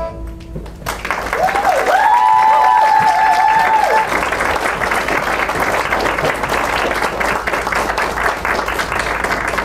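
Audience applauding, with high cheers and whoops over the clapping from about a second in until about four seconds in.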